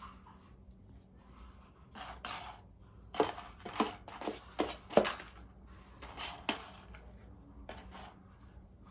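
Cat food puzzle feeder knocking and clacking as a cat paws at it: a quick run of sharp knocks a couple of seconds in, loudest around the middle, then two lighter clicks near the end.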